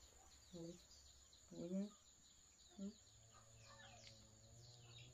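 Near-quiet room with faint bird chirping outside and three short, soft voice sounds in the first three seconds, the middle one the loudest.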